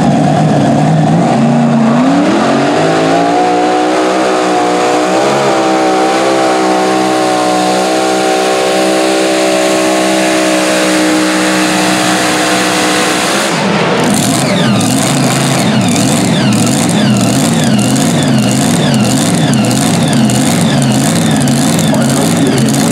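Supercharged engine of a mini modified pulling tractor revving up about two seconds in and holding a high, steady pitch at full throttle through the pull. Just past halfway it falls off into a lower, rougher running note that rises and falls over and over.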